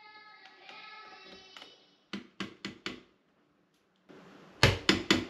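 Light sharp taps and clicks of a drill/driver's bit tip pressed against a metal light-fixture mounting plate and drywall to mark screw holes: four quick clicks about two seconds in, then four louder knocks near the end. A faint tone fades out at the start.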